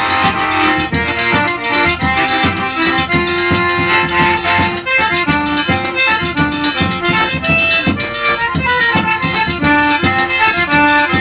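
Accordion playing a melody line over a steady percussion beat: an instrumental passage of live music.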